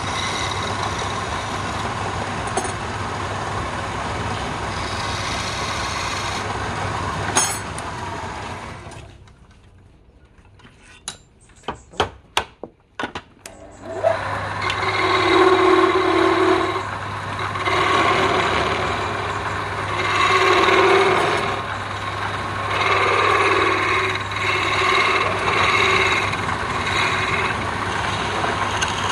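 Wood lathe running with a steady hum. The hum drops away for about five seconds, broken by a few sharp clicks, then returns. A turning tool then scrapes the spinning wooden spindle in uneven passes that rise and fall.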